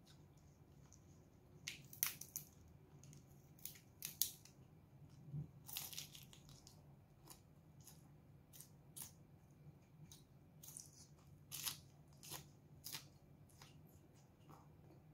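Crisp, irregular crunching and snapping of raw leafy greens being bitten and chewed close to the microphone, loudest about 2 and 4 seconds in.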